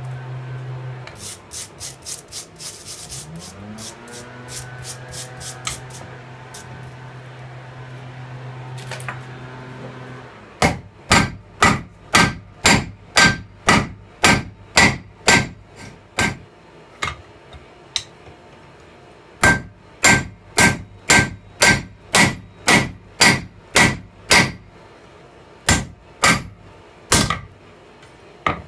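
Hammer blows on red-hot steel lying on a railroad-rail anvil, about two sharp ringing strikes a second in runs with short pauses, as the steel is pounded down and reshaped into a hatchet head. The strikes start about a third of the way in; before that there is a steady low hum with quick light clicks.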